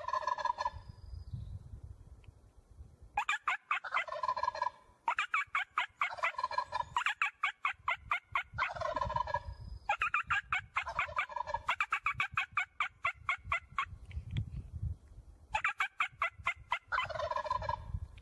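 Wild turkey toms gobbling, one rapid rattling gobble after another, some running together, with short pauses of a second or two between bouts.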